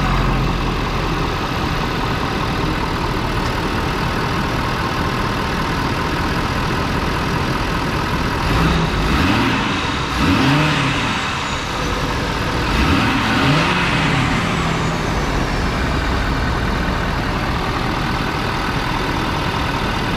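Ford 6.7L Power Stroke V8 turbodiesel, breathing through a Banks Ram-Air intake and 5-inch DPF-back exhaust, idling just after start-up, then revved briefly two times, once about halfway through and again a few seconds later. A faint turbo whistle trails off after the revs.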